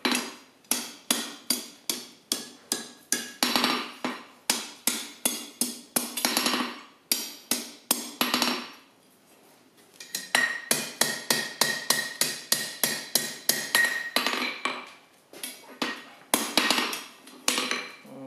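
Hand hammer striking red-hot steel on a blacksmith's anvil, quick repeated blows about three a second with a ringing tone, as the loop end of a forged bottle opener is shaped round. The strikes stop briefly about nine seconds in, then resume.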